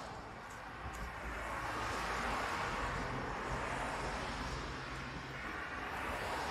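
Road traffic going by: a steady rush of tyre and engine noise that eases and swells again, with a faint low engine drone in the middle.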